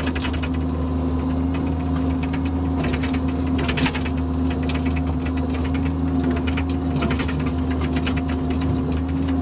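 Bobcat E45 mini excavator's diesel engine running steadily under work as the boom and bucket move, with bursts of fast mechanical ticking and rattle, most marked about a second in and again around three to four seconds in.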